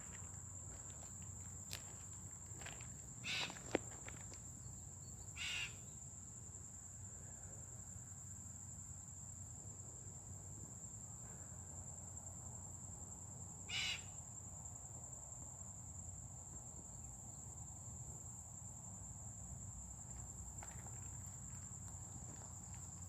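Three short calls from an unidentified marsh animal, two close together early on and one more about eight seconds later, over a steady high-pitched insect trill.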